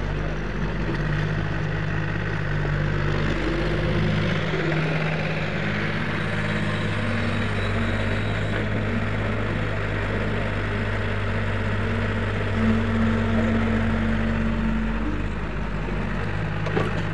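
Diesel engine of a CAT tracked hydraulic excavator running steadily under working load while it digs sand and swings to dump into a trolley, its pitch shifting a little as it works.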